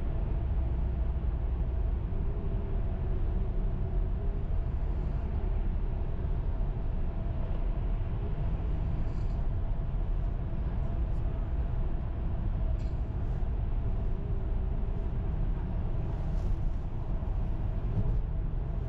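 Steady road and engine noise inside a moving car: a low rumble from tyres and engine with a faint steady hum over it.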